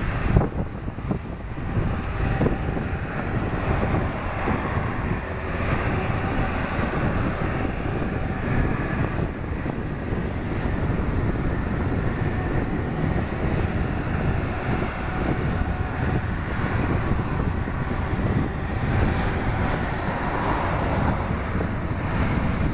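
Airbus A350-1000's Rolls-Royce Trent XWB turbofans running at taxi power as the airliner rolls past, a steady jet engine noise with a hiss on top.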